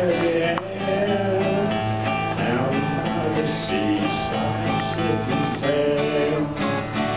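Acoustic guitar strummed in a steady rhythm, an instrumental stretch of a calypso tune.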